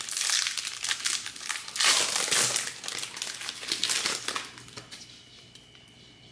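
Foil wrapper of a Pokémon booster pack crinkling and crackling as it is handled and torn open, loudest about two seconds in and dying away about five seconds in.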